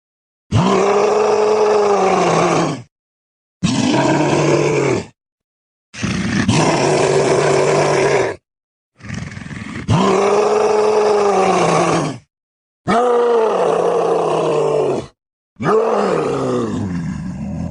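Creature vocal sound effects for a hulking reptilian character: a string of about six separate deep, pitched cries, each about two seconds long, with the pitch arching up and then falling, broken by short silences. The last cry fades away near the end.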